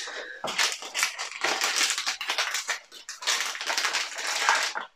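Cardboard blind box being torn open and a foil blind bag crinkling as it is pulled out and handled: irregular crackling and tearing, with a short lull about three seconds in.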